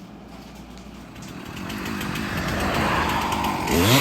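Road traffic noise swelling as a vehicle approaches. Near the end a Stihl 362 two-stroke chainsaw revs up, its pitch sweeping up and down.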